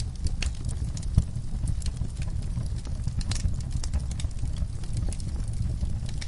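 Wood fire burning with a steady low rumble and irregular sharp crackles and pops, the loudest pop about a second in.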